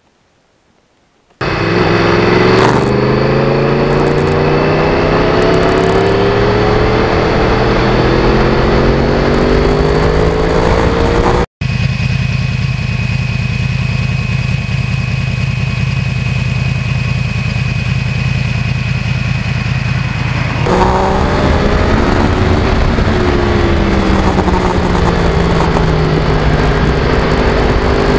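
Yamaha R1 (2009, crossplane-crank inline-four) motorcycle engine accelerating, its note climbing in long pulls. After a hard cut it holds a steady note for about nine seconds, then rises and falls again near the end.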